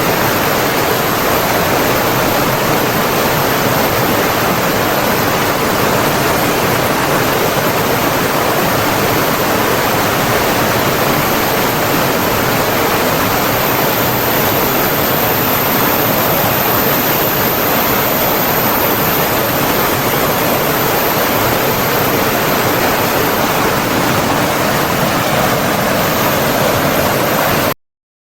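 Steady, loud rush of flowing water from a stream or waterfall, an even hiss with no break in its texture. It cuts out abruptly to silence for about half a second near the end, then returns.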